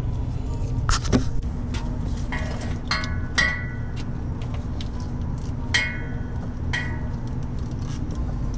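Hand tool clinking and scraping against the metal of a car's driveshaft flange, with a few sharp clicks and then several short ringing clinks, over a steady low rumble.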